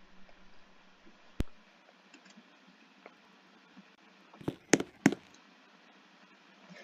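Mostly quiet, with a single sharp click about a second and a half in and a quick cluster of three or four clicks about two-thirds of the way through.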